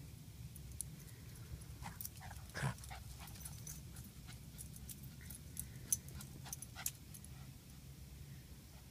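A small dog makes a few short, sharp vocal sounds, clustered about two to three seconds in and again around six to seven seconds, over a low steady background hum.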